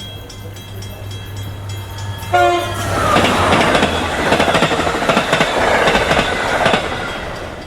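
A horn sounds in held tones of several pitches, once at the start and again about two seconds in, followed by a loud rushing, rattling noise over a low steady hum that fades toward the end.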